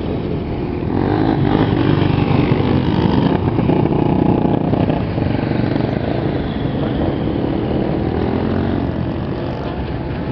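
A pack of motorcycle engines running and revving together as the riders pull away at a rally start, rising to their loudest a couple of seconds in and then easing off.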